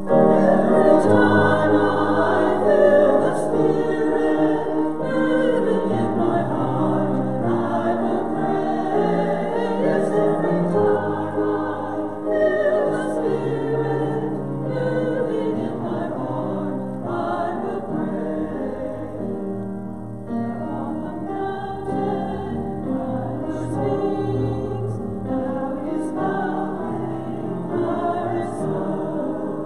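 Church choir singing with instrumental accompaniment.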